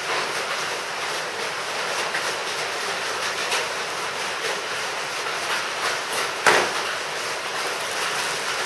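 Thin polyethylene garden-bag film crinkling and rustling as it is pulled and peeled away from a soldering-iron-melted seam, over a steady background hiss. A louder crackle comes about six and a half seconds in.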